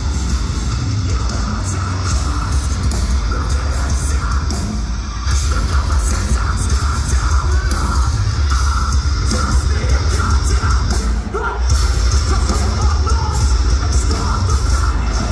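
Live metalcore band playing loud, with distorted guitars, pounding drums and heavy low end under harsh yelled vocals. There are two brief breaks in the riff, about a third of the way in and again past the middle.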